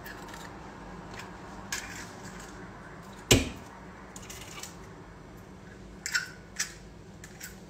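Kitchen handling noises: one sharp knock about three seconds in, then a few lighter clicks near the end, over quiet room tone.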